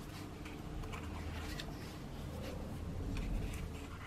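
Sticker book pages being turned and pressed flat by hand: a few faint, short paper rustles and taps over a low steady hum.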